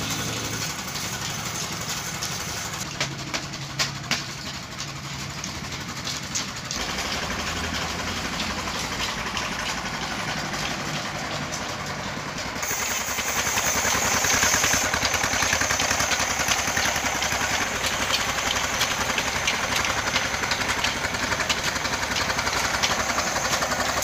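An engine running steadily with a rapid, even pulse. The sound changes abruptly about seven seconds in, then again about twelve seconds in, when it grows louder.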